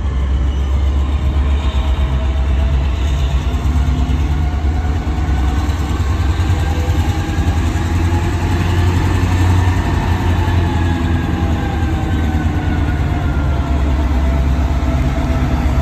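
Diesel-electric locomotive (CSX GP38-3) running with a steady, deep engine rumble as it moves slowly toward the platform, with faint high whines that slowly rise and fall above it.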